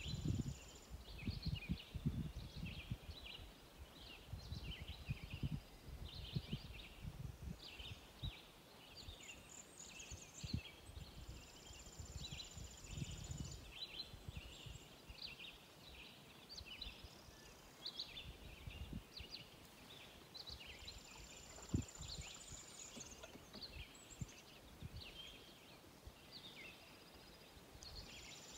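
Several birds singing from the wooded shore: many short high chirps, and a high buzzy trill that comes back about every eight seconds. Underneath, soft low knocks and water sounds from canoe paddling, heavier in the first several seconds.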